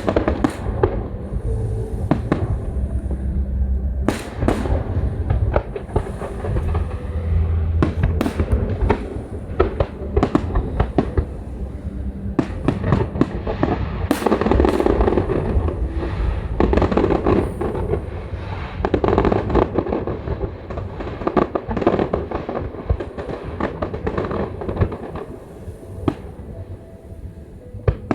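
Fireworks going off: many sharp bangs and rapid crackling, densest through the middle and thinning near the end. Music with a low bass line plays in the first part.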